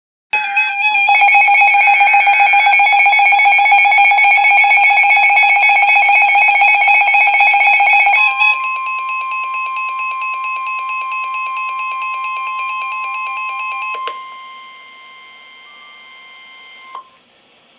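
Emergency weather alert tones: a loud, rapidly pulsing alarm tone for about eight seconds, then a steady tone near 1 kHz, the weather radio warning alarm tone, which drops in level about 14 seconds in and cuts off near the end. The tones announce a severe thunderstorm warning.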